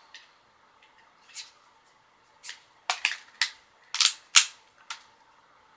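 A run of sharp plastic clicks and taps from handling a Samsung Galaxy S3 smartphone up close: one faint click early, then about seven quick ones between two and a half and five seconds in, the loudest near four and a half seconds.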